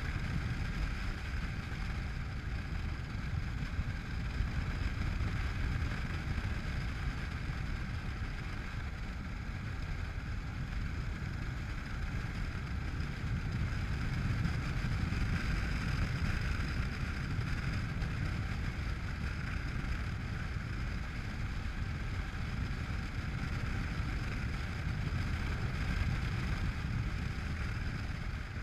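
Honda NC700X's parallel-twin engine running steadily while riding at road speed, mixed with heavy wind rumble on the microphone.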